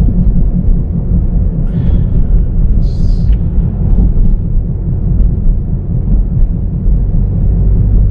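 Steady low rumble of engine and road noise inside a moving car, with two short hisses about two and three seconds in.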